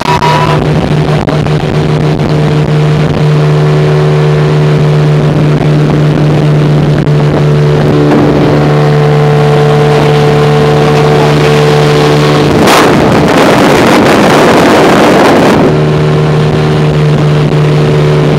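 A flat-bottomed boat's motor running steadily at cruising speed. For about three seconds, roughly two-thirds of the way through, a loud rushing noise covers the engine note before it comes back.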